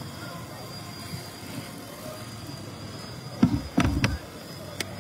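Steady outdoor street background noise. About three and a half seconds in comes a short cluster of loud low thumps with sharp clicks, and one more click comes near the end.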